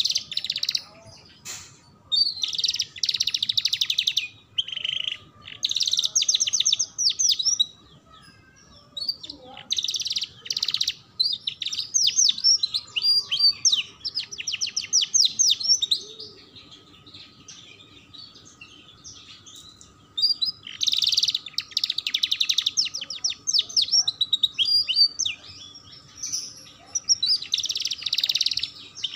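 Domestic canary singing: phrases of rapid trills and chattering notes, broken by short pauses and one longer pause past the middle.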